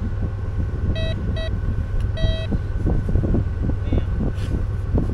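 Metal detector beeping over a buried target: two short electronic beeps about a second in, then a longer one a moment later. A hand trowel scrapes and digs in the sand throughout, over a steady low rumble.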